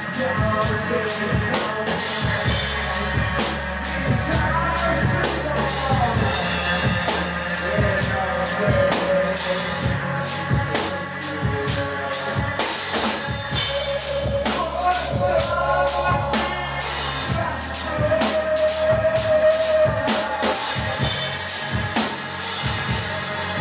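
Live band playing a song: a drum kit keeps a steady beat under electric guitar, synthesizer and a low bass line.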